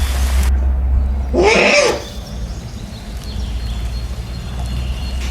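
A single drawn-out animal call about one and a half seconds in, rising then falling in pitch, over a steady low hum.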